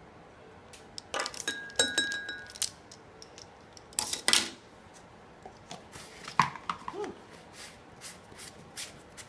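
Clinks and knocks of kitchen containers and utensils being handled, with a short ringing clink about two seconds in and lighter taps afterwards.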